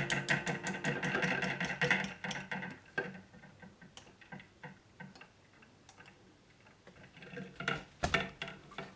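Whisk clicking fast and evenly against a bowl, about seven strokes a second, easing after about three seconds to scattered taps, with a few more strokes near the end.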